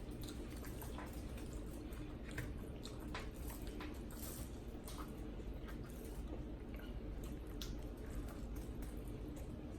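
Wet eating sounds from a shrimp boil with sauce: scattered squishes, smacks and sharp little clicks over a steady low hum.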